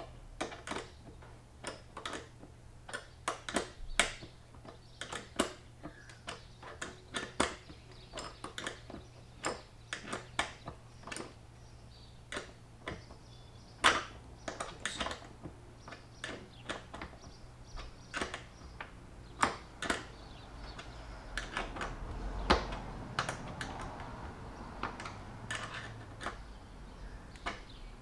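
Light, irregular metal clicks and taps of a small hand tool and bolts being worked by hand at a bracket fitting on a plastic motorcycle fuel tank, one or two a second. About three quarters of the way through there is a stretch of rustling handling noise.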